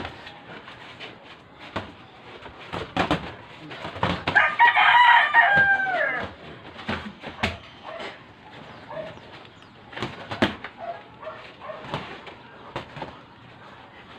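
A rooster crows once, a loud call of about two seconds starting about four seconds in that drops in pitch at the end. Around it, scattered sharp slaps and knocks of boxing gloves landing and feet moving on the ring floor.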